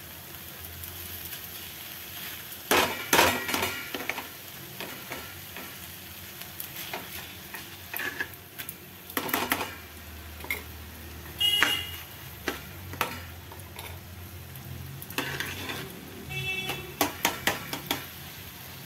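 A metal spoon stirring and scraping thick carrot halwa around a pan, the mixture sizzling as ghee melts into it. There are irregular scrapes and a few short ringing clinks of the spoon against the pan.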